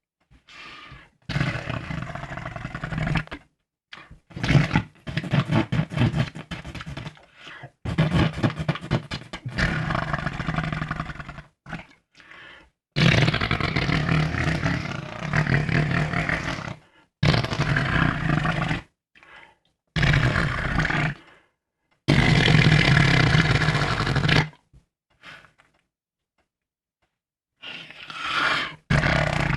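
A person making fake fart noises: a string of low, rough, buzzing blows, each lasting one to four seconds, with short pauses between them.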